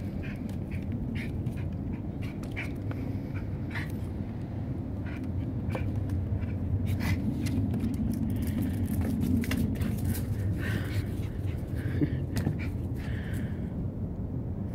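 Yorkshire terrier panting while it plays, with scattered light taps and clicks of its chase after a balloon across wooden steps, over a steady low rumble.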